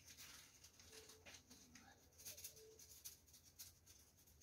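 Near silence: room tone with a few faint taps and rustles.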